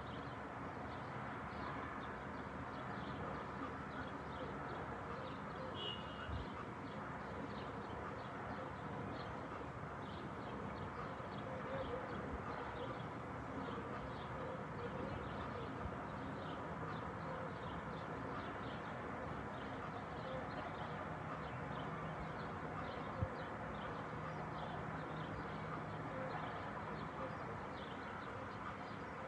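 Outdoor dusk ambience: a steady distant hum with small birds chirping over it, many short chirps throughout, and one sharp click a little after twenty seconds.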